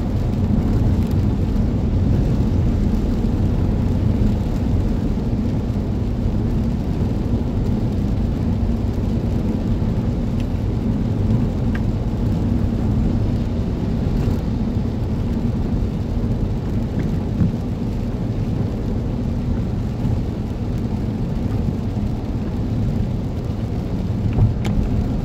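Steady low rumble of a car driving on a rain-soaked highway, heard from inside the cabin: engine and tyres on the wet road, with rain on the car.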